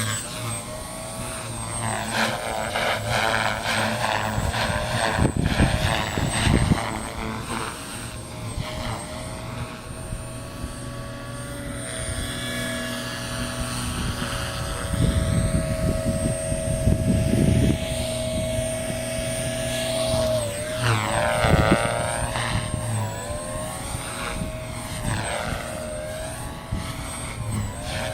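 Beam E4 electric RC helicopter in flight, its rotor and motor whine rising and falling in pitch as it manoeuvres. Strong wind buffets the microphone in low gusts several times.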